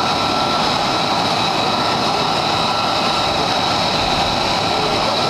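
C-130 Hercules four-engine turboprop on its takeoff roll, engines at full power: a loud, steady propeller-and-turbine drone with high whining tones held over a broad rumble.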